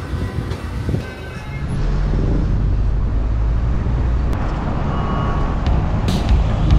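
Car engine and road noise heard from inside a moving car, a steady low drone that swells about two seconds in and then holds.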